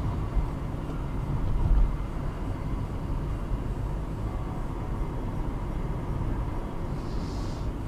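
Steady low rumble of a car's engine and tyres at low city speed, heard from inside the cabin by a dashcam. A short hiss comes near the end.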